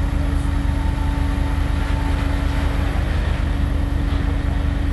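Heavy machinery's engine running steadily during the bridge lift, a constant low pulsing rumble with an even hum above it.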